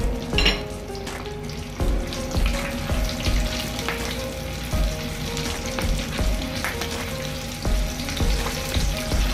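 Flour-and-egg-coated chicken pieces deep-frying in hot oil in a pot: a steady, dense bubbling sizzle with fine crackling.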